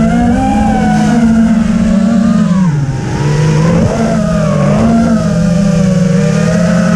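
FPV quadcopter's motors and propellers whining, several close pitches sounding together. The pitch drops and wavers about three seconds in, then climbs back as the throttle changes.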